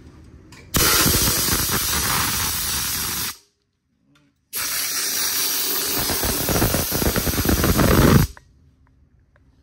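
Compressed CO2 hissing out of a hose nozzle, blowing dust off control circuit boards: two long blasts of about three seconds each, with a short break between them.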